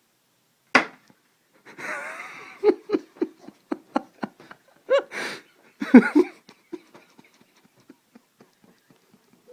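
A sharp click, then a person breaking into helpless laughter: a few loud bursts, then a long run of short wheezing breaths that grow fainter.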